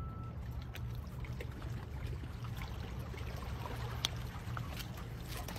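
Steady low rumble of wind and small waves at a rocky shoreline, with one sharp click about four seconds in.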